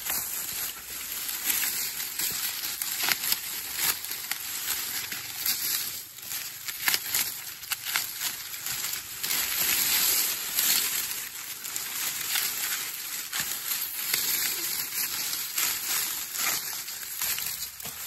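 Dry corn husks and leaves crackling and rustling as ears of corn are husked by hand, a dense run of sharp crackles.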